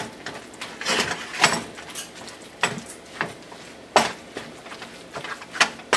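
Wooden spatula stirring cream cheese into greens in a nonstick skillet, scraping and knocking against the pan about once a second.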